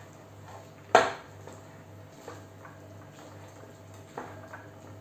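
Metal hand-mixer beaters knocking against a glass mixing bowl, with the mixer's motor off. There is one sharp knock about a second in and a few lighter clinks later, over a faint steady hum.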